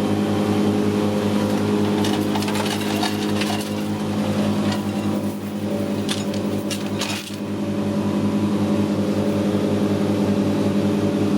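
Boat engine running steadily with an even drone, with a stretch of clattering knocks from about two to seven seconds in.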